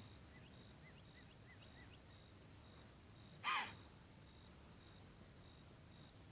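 A white-tailed deer gives one sharp, harsh alarm snort about three and a half seconds in, the sign that it has noticed the stalking hunter. Under it insects trill steadily, and a small bird chirps faintly five times early on.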